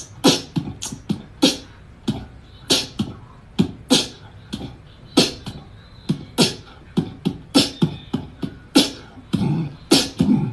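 A person beatboxing: mouth-made kick and snare hits, an uneven run of about two a second, with no words.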